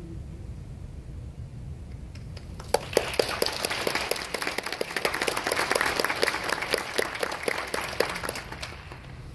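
A held choir chord dies away at the start. About three seconds later the audience breaks into applause, which fades near the end.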